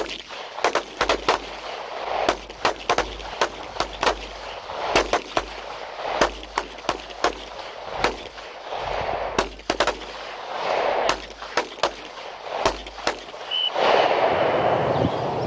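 Several handguns firing in a long string of sharp pistol shots at uneven spacing, some close together, as a line of shooters fires on its own time.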